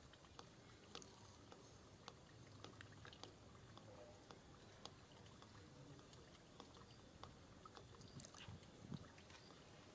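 Faint, scattered small clicks and rustles, irregularly spaced, over a low steady hiss.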